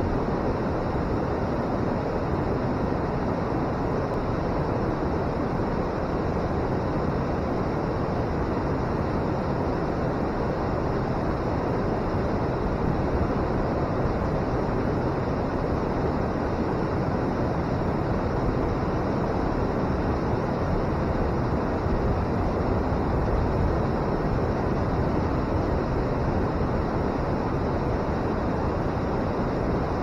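River water pouring over a weir and churning below it: a steady roar of rushing water, even and unbroken throughout, with most of its weight low and in the middle range.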